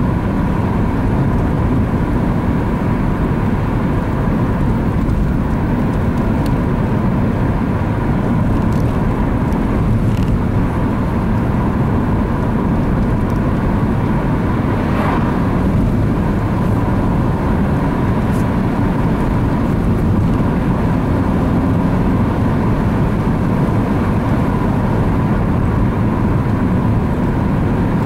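Steady engine and tyre road noise inside the cabin of a moving 2006 Opel Astra Coupe, with an oncoming car passing about halfway through.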